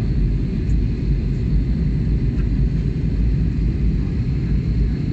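Steady low rumble of a jet airliner's cabin in flight: engine and airflow noise heard from a window seat, with a faint high whine above it.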